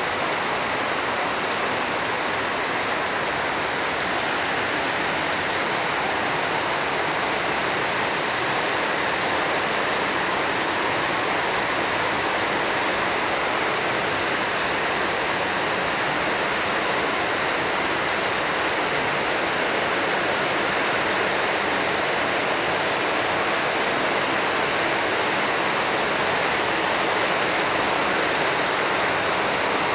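A steady, even rushing noise, like a hiss or a fan, with no change in level or pitch.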